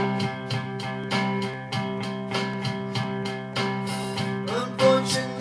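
Strummed guitar playing chords in a steady rhythm, about three to four strums a second, with no singing.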